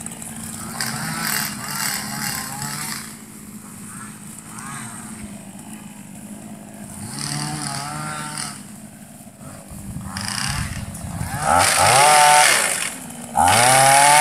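Small engine of a motorised pole-mounted sickle palm cutter running at idle, then revved up twice near the end, each time a loud rising and falling whine, as the blade on the pole is worked up into the palm fronds.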